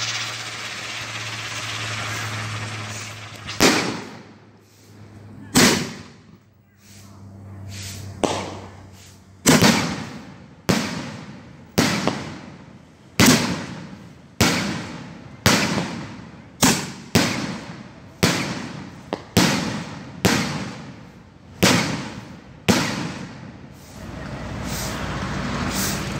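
Aerial firework shells bursting overhead in a long series of sharp bangs, a few spaced out at first and then about one a second, each trailing off in an echo. A steady low hum runs under the first few seconds and comes back near the end.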